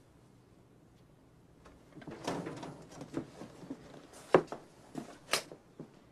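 Rustling and a string of sharp knocks and clicks from a person getting up and moving about in a small room. They start about two seconds in, and the loudest knock comes a little past four seconds.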